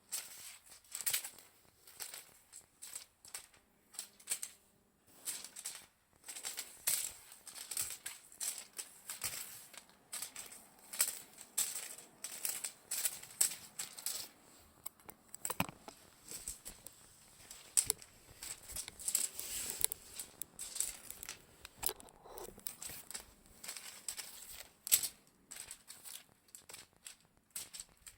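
Irregular bursts of crinkly rustling as a cat teaser toy is flicked about and batted at.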